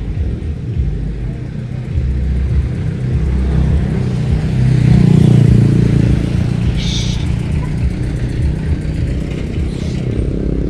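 Street traffic, with one vehicle passing and loudest about five seconds in, over a steady low rumble.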